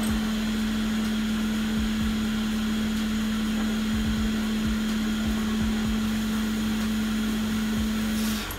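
Steady hum of a small electric fan or blower motor running at a constant pitch, with an airy hiss, which cuts off about eight seconds in; a few faint low knocks of handling.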